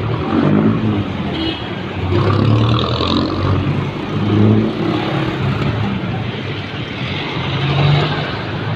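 Road traffic on a city street: cars and motorcycles passing close by, the engine noise swelling several times as vehicles go past.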